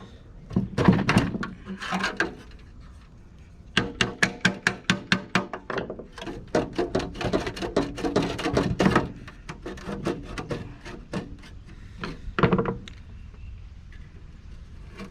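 Rapid metallic clicking and knocking as the rusted steel heater housing is worked apart with a screwdriver, with a quick run of about four clicks a second through the middle and a few heavier knocks before and after.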